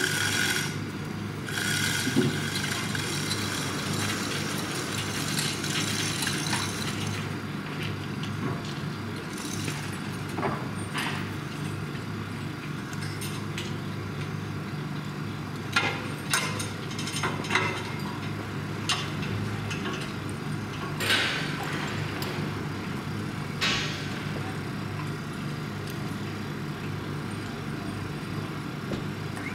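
Steady low hum of idling machinery at a rail work train, with scattered sharp metal clanks and knocks from workers handling rails and the hoist gantry on the flatcar, most of them about halfway through.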